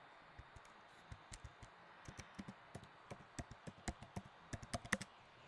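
Faint typing on a computer keyboard: irregular key clicks that come faster from about two seconds in.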